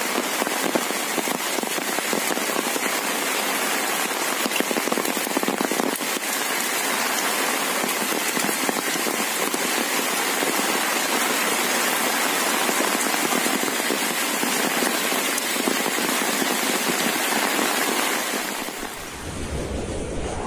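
Heavy rain falling steadily, a dense hiss of countless drops. Near the end the rain gives way to a whoosh sound effect with a low rumble and a rising sweep.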